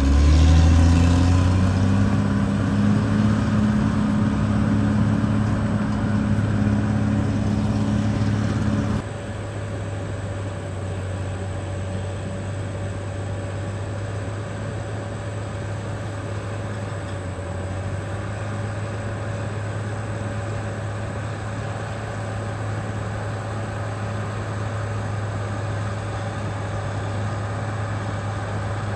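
Caterpillar D6R XL bulldozer's diesel engine working. Its pitch rises in the first couple of seconds and it runs steady and loud. About nine seconds in the sound drops abruptly to a quieter, steady running.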